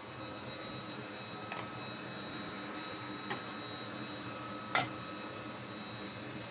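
Steady fan hum of bench equipment with a faint high whine, broken by a few small clicks. The loudest click comes about three quarters of the way through.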